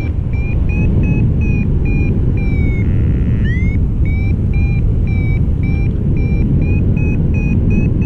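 Paragliding variometer beeping at about three short, high beeps a second, the climb tone that signals rising in a thermal. The beeping breaks off briefly about three seconds in and comes back with a rising sweep. Under it is heavy, steady wind rush on the microphone from the flight.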